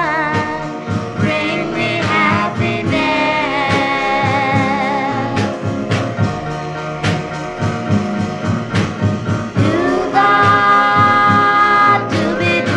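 An oldies soul record playing: a sung melody over a full band.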